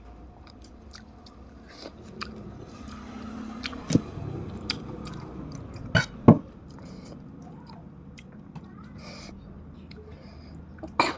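A person chewing mouthfuls of rice with puti fish chorchori, with wet mouth noises and a few sharp smacking clicks, the loudest around the middle and near the end.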